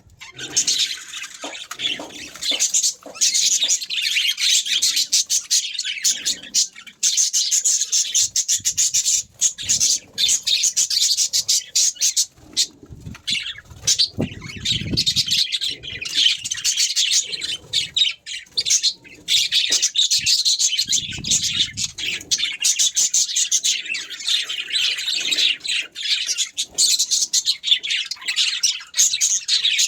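Budgerigars chattering: a busy, continuous stream of rapid high chirps and squawks.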